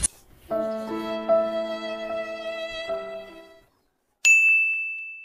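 A short musical transition sting: several held notes come in one after another and fade out over about three seconds, then a single high bell ding rings out about four seconds in and slowly dies away.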